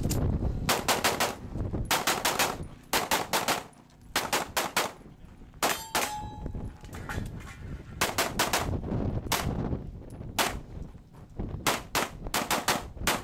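Pistol fire in a practical-shooting stage run: quick strings of two to five shots with short pauses between as the shooter moves from one position to the next.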